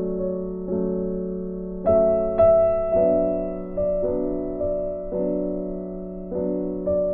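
Background piano music: chords struck about once a second, each left to ring and fade.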